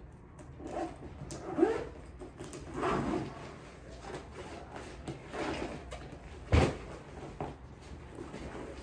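Rustling and shuffling of backpacks being handled and packed, with scattered knocks; a sharp thump about six and a half seconds in is the loudest, with a smaller one about a second and a half in.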